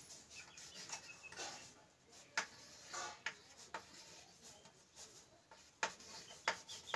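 Chalk writing on a chalkboard: faint short scratches and taps as each stroke of a letter is made, a few of them sharper than the rest.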